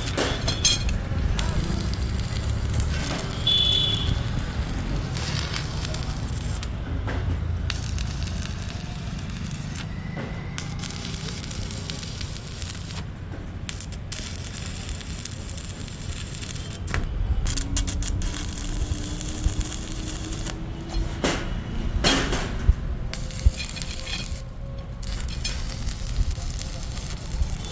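Electric arc welding on iron: a steady crackling sizzle from the arc, broken off briefly several times.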